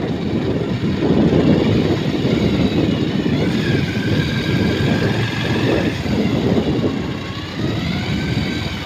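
A vehicle engine running and moving along a road, its pitch rising and falling a little, under heavy wind rumble on the microphone.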